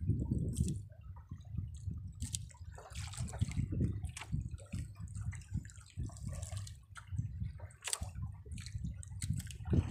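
Sea water slapping and sloshing against the side of a small boat, in irregular splashes and knocks.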